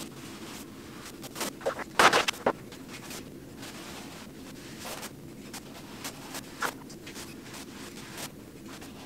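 A paintbrush brushing primer onto a wall along the ceiling line, with scattered scratchy strokes and small knocks. The loudest is a short clatter about two seconds in.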